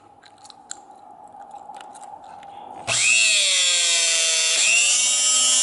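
Ogura portable electric rebar cutter switched on about three seconds in, its motor whining loudly. The whine falls in pitch as the cutter works through a 16 mm rebar, then breaks and rises again about a second and a half later.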